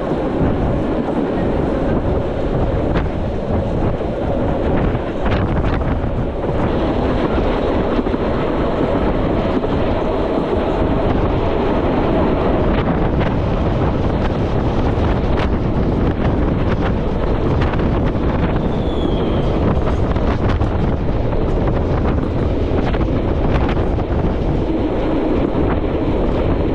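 Metre-gauge train running along the track: a steady, loud rumble of wheels on rail with scattered clicks, and wind on the microphone.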